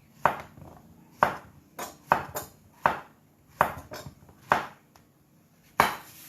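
Kitchen knife chopping vegetables on a cutting board: about ten sharp, unevenly spaced chops.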